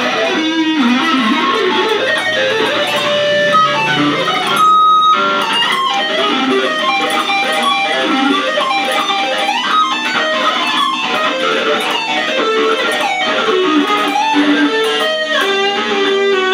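LTD EC-1000 electric guitar played through a Roland Cube amplifier: fast single-note lead lines that run without a break, with one high note held for about half a second around five seconds in.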